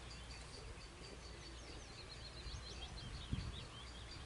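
Songbirds chirping in the background, many short high chirps, over a faint steady outdoor rumble; a soft low thump about three seconds in.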